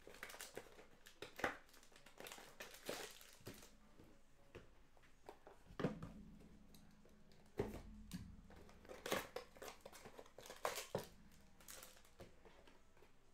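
Trading-card packs being handled on a table: short bursts of wrapper crinkling and light taps, spaced a second or more apart.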